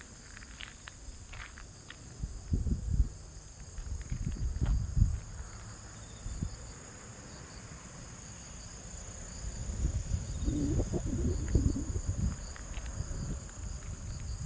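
Steady high-pitched insect chorus. Low rumbling thumps come in a couple of seconds in and again from about ten seconds in.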